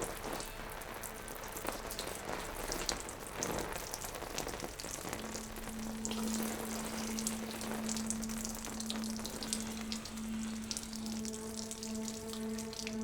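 A crackling, hissing noise full of small clicks. A steady low hum comes in about five seconds in, and higher steady tones join it near the end.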